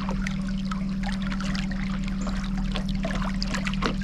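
Water trickling and dripping over a steady low hum from the boat.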